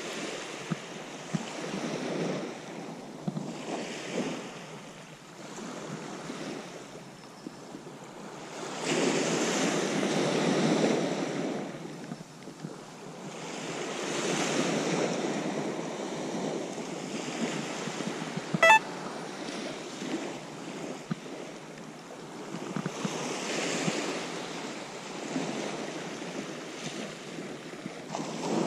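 Small waves washing onto a sand-and-pebble beach, swelling and falling away several times, with wind on the microphone. A single sharp click about two-thirds of the way through.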